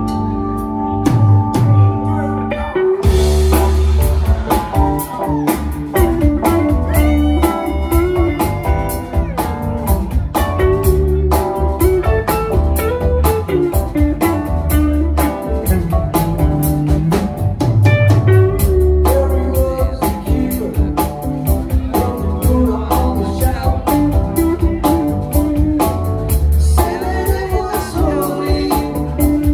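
Live jam-band rock with electric guitar, electric bass, drum kit and keyboards. It opens on a held chord, and the drums and bass come in about three seconds in under a bending lead line.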